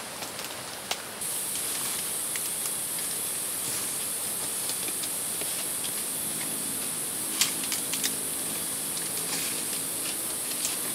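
A steady high-pitched drone of cicadas in the forest starts abruptly about a second in. A few sharp snaps and rustles of leaves and stalks being handled come in the second half.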